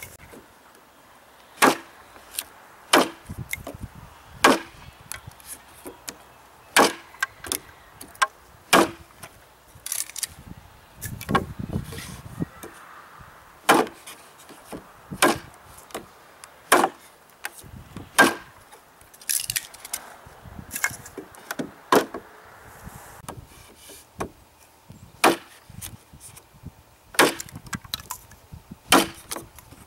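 Cold Steel Bushman knife chopping into 2x2 lumber: a sharp wooden chop roughly every one to two seconds, about twenty strikes in all.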